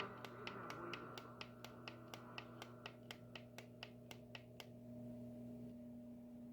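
Faint hum of a radio carrying dead air after an emergency alert test, with a quick, even run of clicks, about four a second, that stops about two-thirds of the way through.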